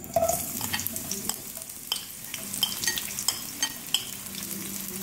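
Sliced onion hitting hot oil and sizzling as it starts to fry, the sizzle jumping up right at the start. Short clicks and scrapes of a spatula stirring in the pan run through it.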